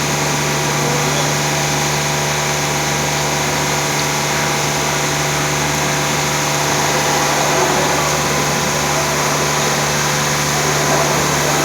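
Automatic brush car wash machine running: a steady mechanical hum with a wash of noise that does not change.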